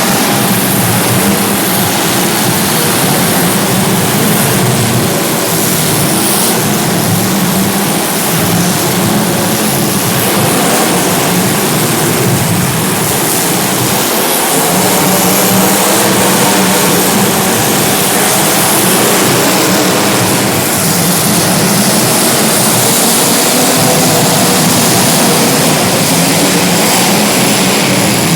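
Engines of several racing vehicles running together during a race, loud and steady, their overlapping pitches rising and falling as they lap.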